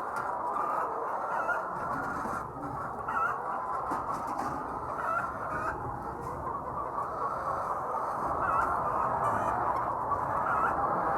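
A large flock of laying hens clucking continuously, many overlapping calls blending into a steady din.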